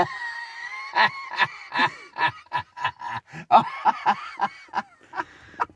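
A man laughing hard in a long run of short bursts, about three a second, fading out near the end.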